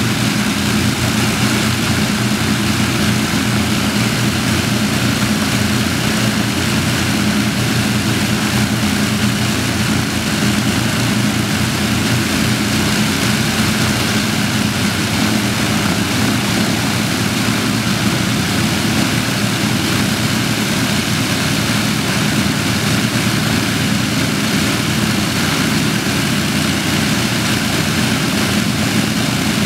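Avro Lancaster's four Rolls-Royce Merlin V12 engines running together on the ground, all four propellers turning, with a steady, unbroken low hum.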